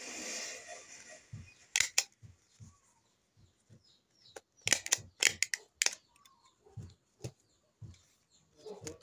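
Small handheld stapler snapping shut as it drives staples through folded banana leaves: sharp snaps, two about two seconds in and a quick run of four from about four and a half seconds in. The banana leaves rustle as they are handled at the start.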